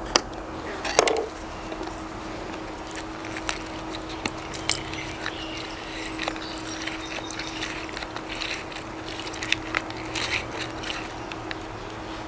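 A knife cuts through a lemon on a wooden table with a couple of sharp knocks, then a hand-held citrus squeezer presses the lemon halves with scattered small clicks and drips. A steady low hum runs underneath.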